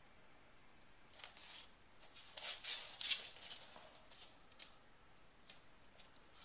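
Faint short scuffs and rustles, a few light ticks among them, as an English bulldog puppy gets up and shifts its paws on a hardwood floor.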